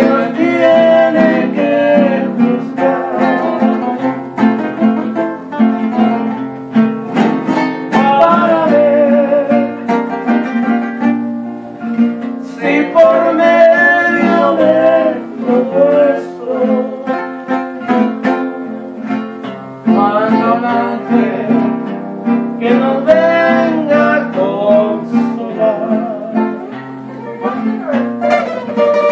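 Live acoustic music: a classical guitar strummed together with a smaller second string instrument picked. A voice sings a melody over them in phrases with short pauses between.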